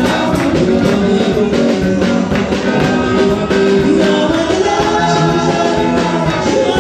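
Live worship music: a band with drums and guitar playing a steady upbeat rhythm while a congregation or singers sing along.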